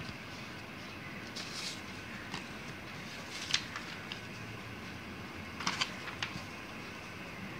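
Sheet of paper crackling and rustling in short bits as it is handled and folded by hand, the sharpest crackle about halfway through and a few more near the end, over a steady background hiss.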